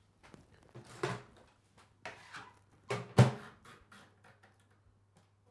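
A few knocks and clatters with a louder thud about three seconds in, from a glass dish going into a microwave and the door being shut, over a steady low hum.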